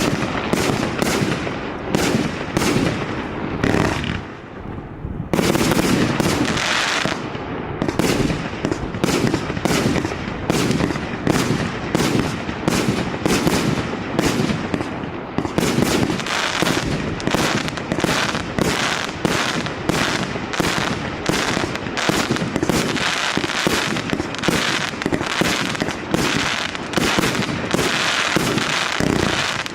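Maxsem 'Never Alone' multi-shot firework cake firing shot after shot, about three or four bangs a second, with a short lull about four seconds in.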